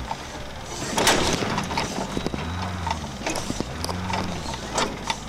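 Off-road competition truck's engine revving in short rising and falling bursts while the vehicle knocks and bangs on rock, heard from inside the cab; a sharp bang about a second in is the loudest.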